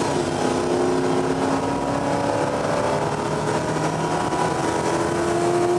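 A car engine held at high revs. Its pitch drops briefly just after the start, then climbs back up about halfway through.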